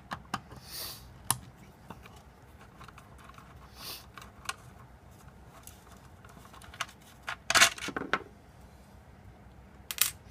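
Scattered light clicks and soft scrapes of a screwdriver and small parts being handled while removing motor mounting screws and spacers, with a louder clatter of knocks about three quarters of the way through.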